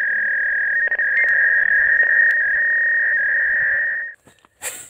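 Intro sound effect: one long, high electronic tone, held steady with a couple of brief jumps in pitch, that cuts off about four seconds in.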